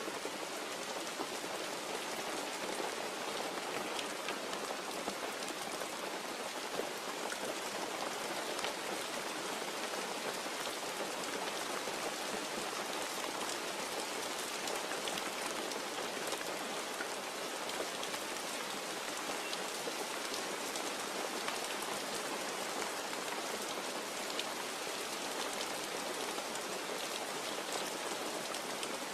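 Steady rain falling and pattering on surfaces, with scattered individual drop ticks and no thunder.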